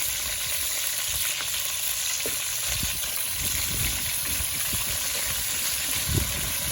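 Chicken pieces frying in hot oil in a pot, a steady sizzle, with a few low knocks, one louder near the end.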